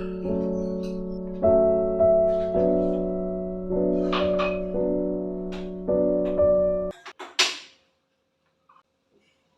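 Soft solo piano background music playing slow, sustained notes, stopping abruptly about seven seconds in. A few short clicks and knocks are heard over it, the loudest just after the music stops, then it goes nearly quiet.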